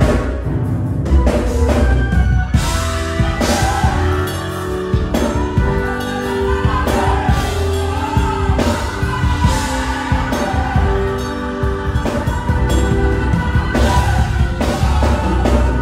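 Live gospel choir singing with a band: choir voices over a drum kit with repeated cymbal crashes and a heavy bass.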